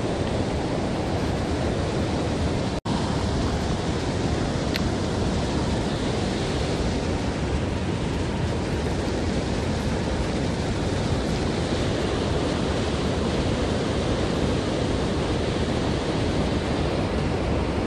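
Steady rush of river water spilling over a low weir and through the riffles, mixed with wind buffeting the microphone. The sound cuts out for an instant about three seconds in.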